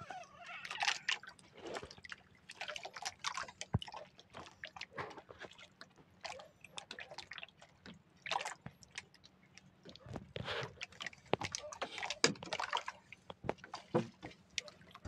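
Water splashing and dripping irregularly at the surface close to the boat, in short uneven splashes.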